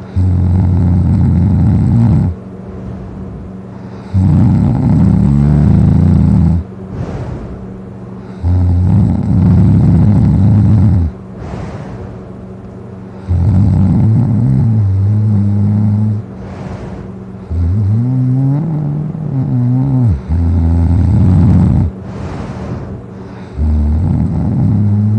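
A person in a drunken sleep snoring very loud: deep, rattling snores of two to three seconds each, coming about every four to five seconds, about six in all. One snore near the middle wavers up and down in pitch.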